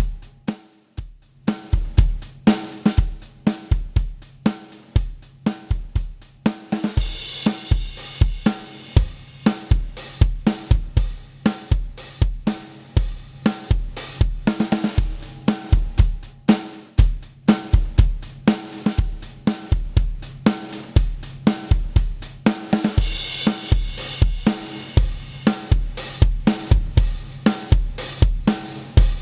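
Drum kit groove of kick, snare, hi-hat and cymbals, played through the Rough Rider 3 compressor plugin as a demonstration of its compression. The beat is steady and punchy, with brighter cymbal-heavy passages starting about seven seconds in and again near the end.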